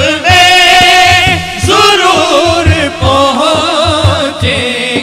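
Male voice singing long, wavering melismatic phrases of an Urdu devotional naat, over a steady beat on a frame drum (daf).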